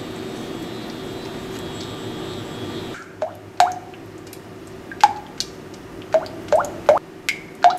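Silicone spatula stirring thick melted chocolate and butter in a saucepan, making irregular wet plops and squelches, about one or two a second in the second half. For the first three seconds there is a steady low hum.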